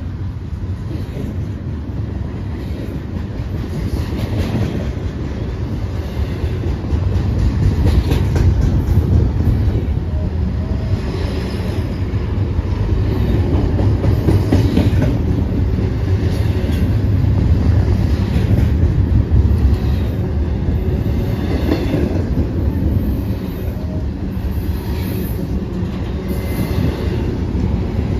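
Double-stack intermodal freight cars of a BNSF train rolling past close by: a steady heavy rumble of steel wheels on rail, with irregular clacks as the wheels cross rail joints.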